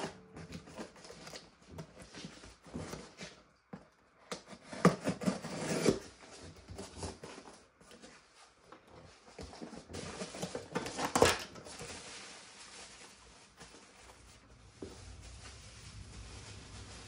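Scissors cutting packing tape on a cardboard box, then the cardboard flaps being pulled open and plastic bags and paper sheets rustling as the box is unpacked. The handling is louder about five seconds in and again about eleven seconds in.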